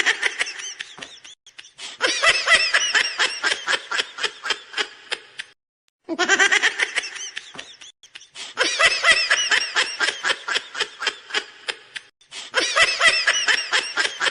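High-pitched laughter in long runs of rapid giggles, breaking off briefly a few times.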